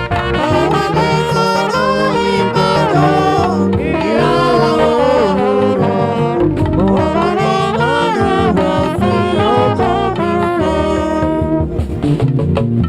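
Church band music with a horn, saxophone-like, playing a gliding, ornamented melody over sustained chords and a steady beat.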